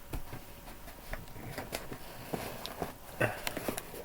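Fingers picking and scraping at the packing tape on a cardboard box to tear it open by hand. It makes a run of irregular small scratches and clicks, the loudest about three seconds in.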